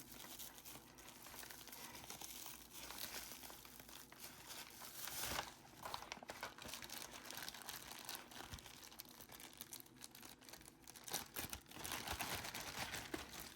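Faint crinkling and rustling of packaging as a mail-order package is opened and its contents unwrapped, a little louder about five seconds in.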